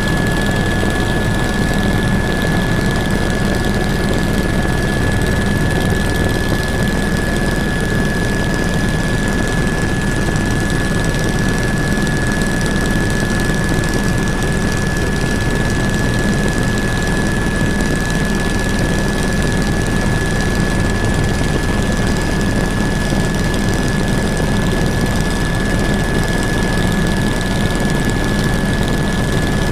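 Helicopter in flight, heard from on board: a steady engine and rotor drone with a thin, steady high whine over it.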